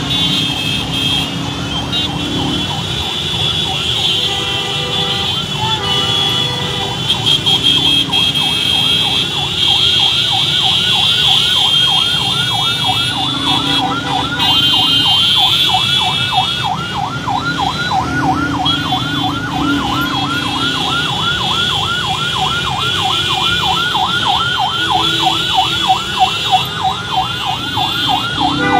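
An electronic siren sounding, going over about seven seconds in to a rapid yelp that rises and falls about three times a second, over the rumble of motorcycle and car traffic.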